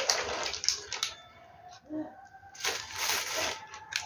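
Plastic bags and snack wrappers rustling and crinkling as they are handled, with a quieter pause in the middle.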